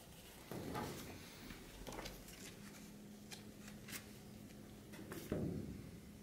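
Faint handling noises: a few light rustles and clicks from a paper booklet and a plastic Blu-ray case being handled. The loudest comes a little after five seconds in.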